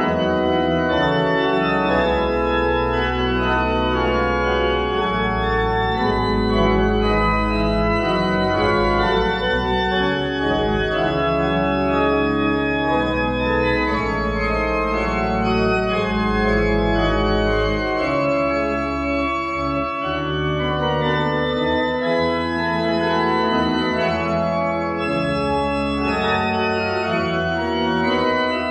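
Church organ playing a piece in several voices, with long held bass notes beneath moving upper parts.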